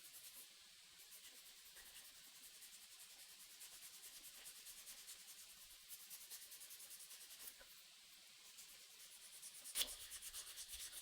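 Faint hand sanding of a wooden knife handle: quick, even back-and-forth strokes that pause briefly about eight seconds in, then resume a little louder near the end.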